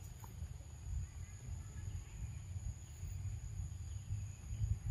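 Forest ambience: a steady high-pitched insect drone over a low rumble, with a few faint chirps.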